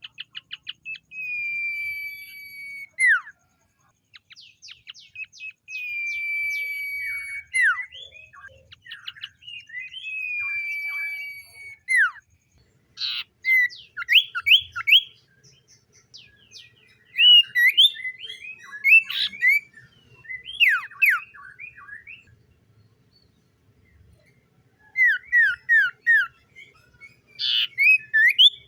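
Common iora singing: three long whistles, each held about two seconds, falling slightly and ending in a quick downward slur. These are followed by runs of short, quick down-slurred notes with brief pauses between them.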